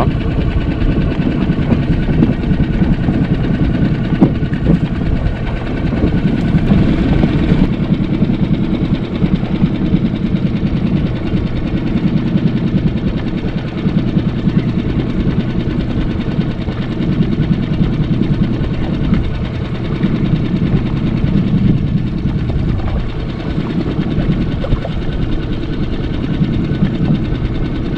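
Small boat's outboard motor idling steadily, a low, even rumble.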